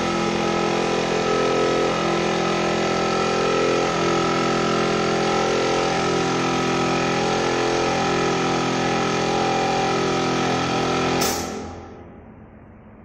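Air compressor running steadily with a pitched motor hum. About eleven seconds in there is a sharp rush of air and the machine stops, leaving a faint hiss.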